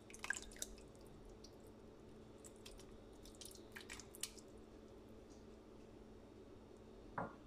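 Diced tomatoes poured and spooned from a bowl onto fish in a stainless steel pot: a few faint wet plops and small clicks, mostly in the first second and again a few seconds in, over a quiet room with a faint steady hum.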